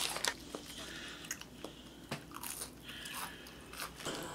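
Biting into a paper-wrapped KFC burger and chewing it, a string of small crisp cracks, with the paper wrapper rustling briefly at the start.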